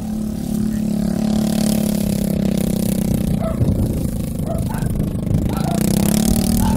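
A small engine running at a steady pitch, turning rougher and uneven for a couple of seconds around the middle before settling back to a steady hum.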